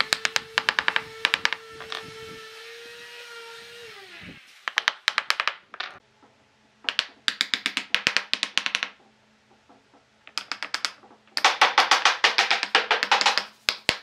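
Wooden mallet tapping wooden wedge pieces into a glued round tabletop, in quick runs of light strikes with short pauses between. A small electric motor hums steadily under the first few seconds and winds down about four seconds in.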